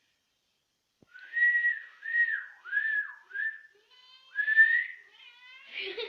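A person whistling a short run of about five notes, each sliding up and falling away, with a cat giving short meows between the later notes.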